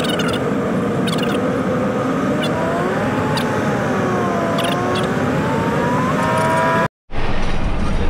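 Cummins diesel pickup running down the highway under a towing load: steady engine and road noise with a pitched tone that slowly rises and falls. The sound breaks off for a moment about seven seconds in and comes back deeper.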